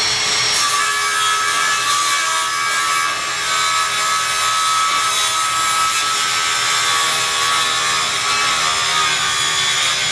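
Cordless circular saw running steadily as it cuts through a board: a high motor whine over the rasp of the blade.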